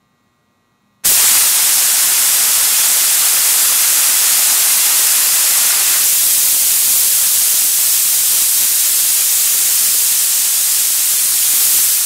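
Central Pneumatic HVLP gravity-feed spray gun hissing steadily as compressed air sprays lacquer thinner through it to flush it clean. The loud hiss starts suddenly about a second in.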